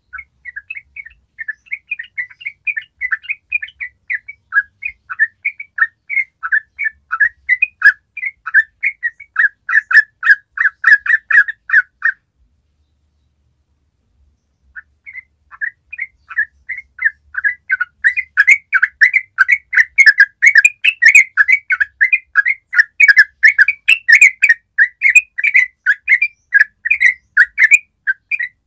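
Yellow-vented bulbul singing a long, rapid run of short chattering notes, the fast continuous song bird-keepers call ropel. The song breaks off for about two seconds near the middle, then starts again.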